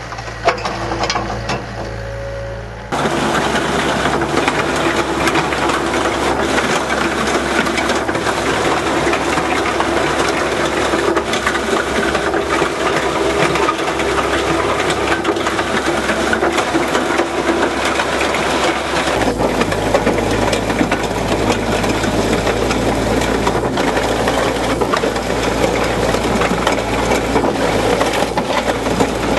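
A hydraulic excavator's diesel engine runs with a steady drone. About three seconds in, a much louder, dense clatter of soil and gravel being shaken through a REMU Crossover screening bucket takes over and carries on steadily.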